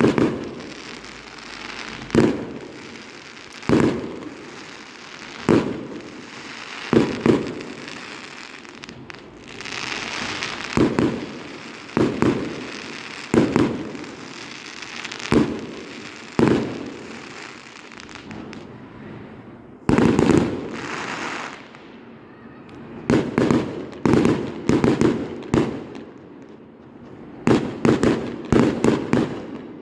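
Fireworks going off: loud bangs every second or two, with crackling between them, then a rapid flurry of bangs near the end.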